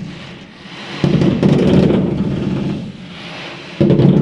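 A firework cake, a whole box of shots, going off just outside the house: rapid booming with crackling. It jumps louder with a fresh volley about a second in and again near the end.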